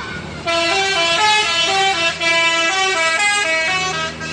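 Bus telolet horn playing a quick tune of stepped notes, starting about half a second in and stopping near the end.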